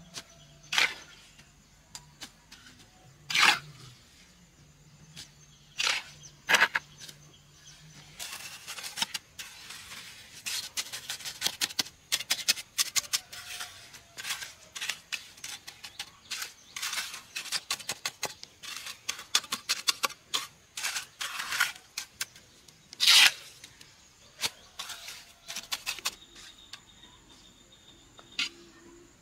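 Sharp knocks of work on wood or metal: a few single strikes a couple of seconds apart, then a long run of rapid, uneven taps and clicks, and one loud strike near the end.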